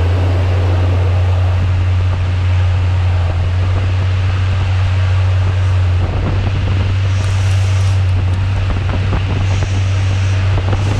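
Mori Seiki ZL-25 CNC lathe running, its spindle turning the workpiece with a steady low hum over the hiss of coolant spray. A turning tool feeds into the spinning part in the second half.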